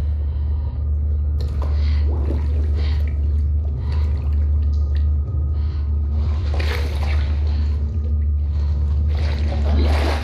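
Film soundtrack: a deep, steady rumbling drone under on-and-off sloshing and dripping of liquid.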